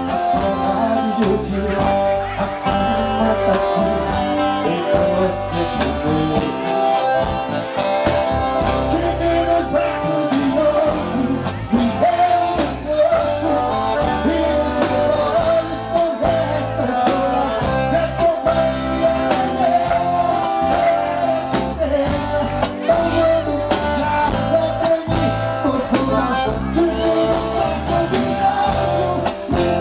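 Live sertanejo band music: a man singing lead over drums and band accompaniment with a steady beat.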